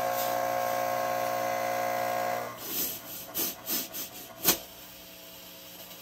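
Small fog machine triggered by remote: its pump buzzes steadily for about two and a half seconds and then stops, followed by a few short hisses as fog jets out and a sharp click about four and a half seconds in.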